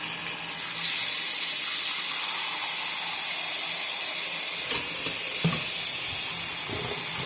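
Bathroom vanity faucet running steadily into the sink, a continuous rushing hiss, run to bleed the air out of the newly connected supply lines, with a few faint knocks along the way.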